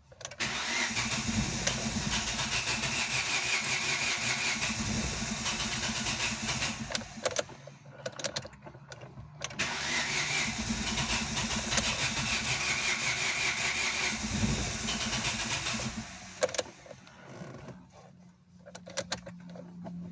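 Ford Ka engine being cranked by its starter motor with the key, twice, each time for about six seconds, with a high whine over the cranking. This is the car's starting noise, which the owner calls horrible and says is still there after the earlier repair.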